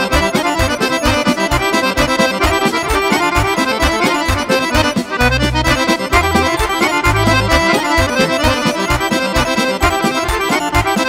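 Serbian folk kolo dance medley played on several chromatic button accordions over keyboard bass and a quick, steady dance beat. A few longer held bass notes break the pulse around the middle, then the beat carries on.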